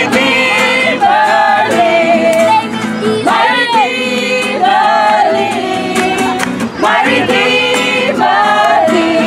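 A group of men and women singing a lively song together to a strummed acoustic guitar.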